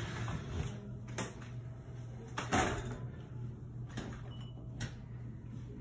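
A few short knocks and clunks, spaced about a second apart, as a Technivorm Moccamaster coffee maker is carried over and set down on a kitchen counter. A low steady hum runs underneath.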